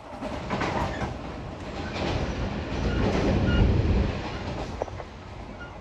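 Cabin running sound of a JR West 113 series electric train: a steady rumble of wheels on rail with a few light knocks. It grows louder a few seconds in, then eases off.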